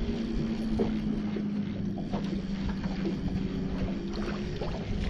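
Steady hum of a bass boat's electric trolling motor, with wind on the microphone.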